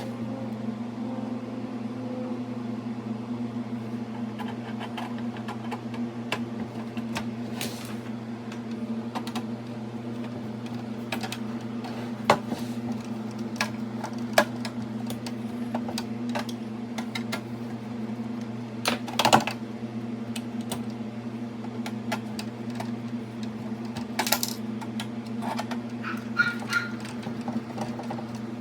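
A steady low machine hum with scattered clicks and knocks of small hard parts being handled, louder a few times around the middle and near the end.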